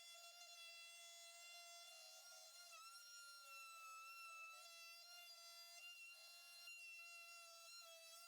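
Faint, steady high-pitched whine of a router spinning a round-over bit, edging wooden push blocks; the pitch wavers slightly now and then.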